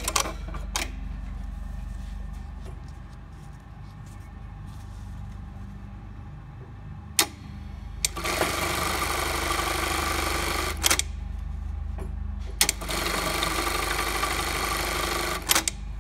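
Durkopp Adler 513 direct-drive electronic bartack machine sewing two bartacks about two seconds apart. Each is a fast, dense run of stitches lasting about two and a half seconds, with a sharp click just before and after it. A few clicks sound near the start over a low steady hum.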